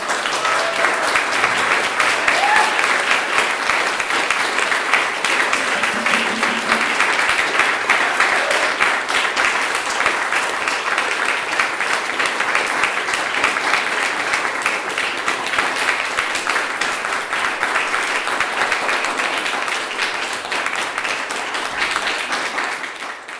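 Small audience applauding: steady clapping that fades out near the end.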